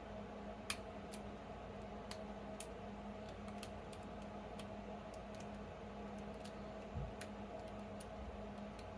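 Small, scattered clicks of a lock pick and tension tool working the pins of an ABUS 72/40 padlock, with a sharper click about a second in and a soft thump near seven seconds, over a steady low hum.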